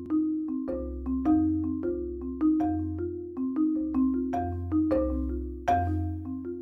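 Background music: a light tune of short, ringing struck notes, several a second, over a low bass note that changes about once a second.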